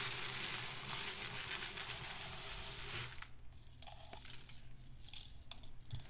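Dry rice pouring from a cup into a plastic tub: a steady rushing hiss that thins out and stops about three seconds in. Then come scattered soft rustles and clicks as a hand rummages through the rice.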